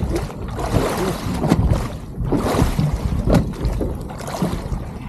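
Big tuna thrashing in the water against the side of a small boat while held on the gaff: irregular splashes and sloshing with several sharp knocks.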